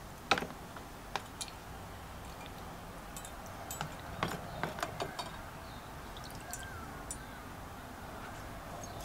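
Small metal parts hanging on wire hooks clinking against a metal rod and each other as they are dipped into a tub of water: a scatter of sharp clicks and light taps, the loudest just after the start and a cluster around the middle.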